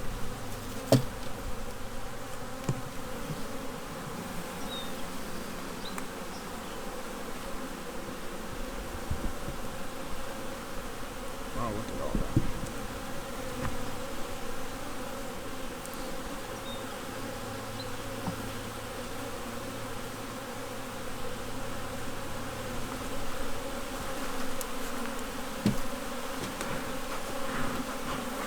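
Honey bees buzzing steadily in a crowd around an open hive during an inspection, with a few short knocks.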